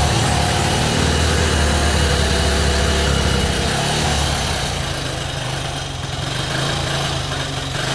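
Single-cylinder engine of a carbureted 125 cc Chinese commuter motorcycle running on choke just after a kick start, its running sagging about halfway through as if it wants to die, the fuel slow to flow after the bike sat for about a week.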